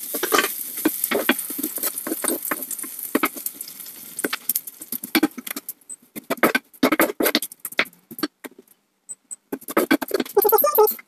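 Leftover roast chicken sizzling in a hot frying pan, the hiss fading over the first few seconds, while a wooden spoon scrapes and taps against the pan as the chicken is stirred.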